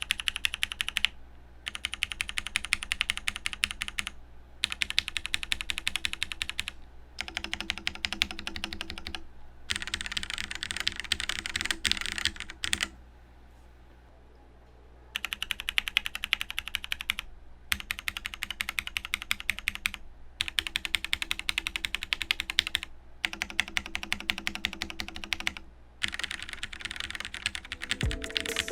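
Fast typing on a KBD67 Lite mechanical keyboard with Gateron Black linear switches and a POM plate, in runs of about two to three seconds with short pauses between them and a longer pause about halfway through.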